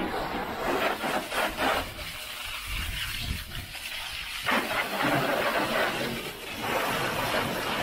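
Water jet from a car-wash hose wand hissing as it sprays against a mud-caked car's side panels and wheel, washing the mud off. It eases off for a couple of seconds in the middle and comes back stronger about four and a half seconds in.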